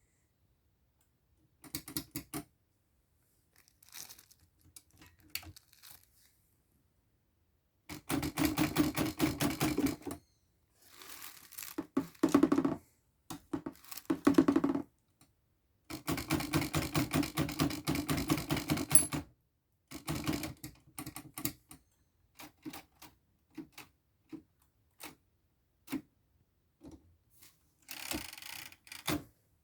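Old Torpedo typewriter being typed on: keys striking in quick runs of a few seconds at a time, with pauses and scattered single keystrokes between.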